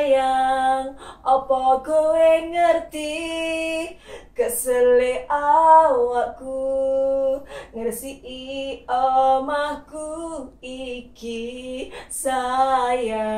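A woman singing solo without accompaniment, in phrases of held notes with short breaks between them.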